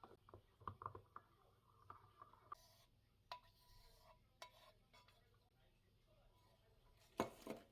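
Faint kitchen clatter: scattered small clicks and knocks of dishes and utensils being handled, with the loudest pair of knocks near the end.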